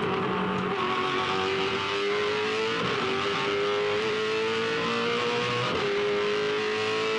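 Holden Commodore V8 Supercar's 5.0-litre V8 at full throttle, heard from inside the cockpit, its pitch climbing steadily and dipping twice, about three seconds apart, as it shifts up through the gears. Road and wind noise run under it.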